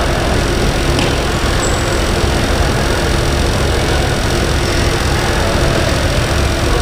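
Loud, steady rumbling background noise of an indoor futsal hall, with a faint steady hum and one faint click about a second in.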